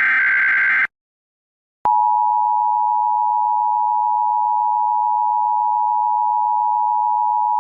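Emergency Alert System SAME header data burst, a harsh buzzy screech that ends about a second in. After a second of silence, the EAS two-tone attention signal starts and holds as a loud, steady alarm tone, announcing an alert message.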